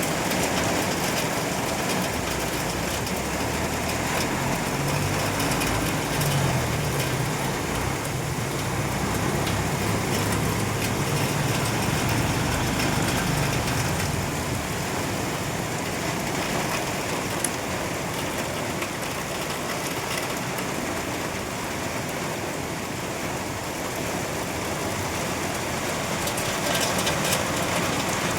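Steady rain falling, an even hiss of drops on surfaces, with a low rumble underneath during the first half.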